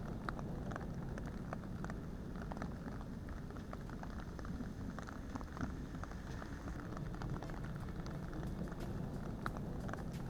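Steady rain falling during a thunderstorm, with many individual drops ticking irregularly on nearby surfaces.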